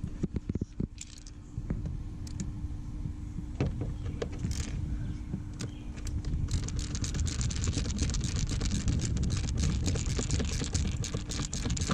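Metal tools and small hardware clinking and rattling during hand work on a car's dashboard trim, scattered at first and then a thick, rapid jangling from about six seconds in, over a steady low hum.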